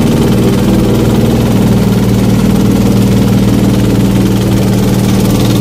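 Motorboat engine running steadily under way, heard from on board as a loud, even drone.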